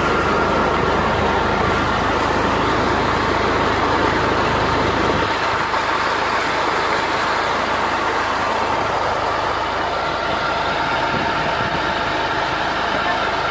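Tractor diesel engine running steadily, driving a water pump through its PTO shaft and belt pulleys, with a faint steady whine over the engine noise.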